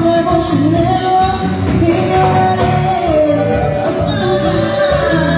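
A live cumbia band playing a song with a lead vocal, accordion, keyboards and drums, with an even dance rhythm throughout, heard across a large hall.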